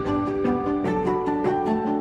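Background music: a gentle melody of plucked string notes in a steady rhythm.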